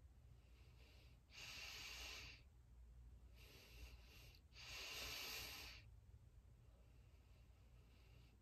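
Faint breathing close to the microphone: three clear breaths, each about a second long, a second or two apart, with fainter ones between.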